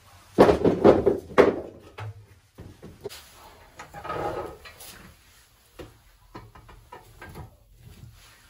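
A quick run of loud knocks and clatter, then the front door of a small wood-burning stove scraping open about four seconds in, followed by scattered light knocks as the fire is tended.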